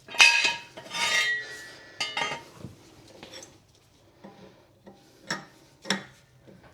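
Metal clattering and scraping with a ringing edge, then a few fainter knocks and two sharp knocks near the end, as garage equipment is moved out from under a raised car.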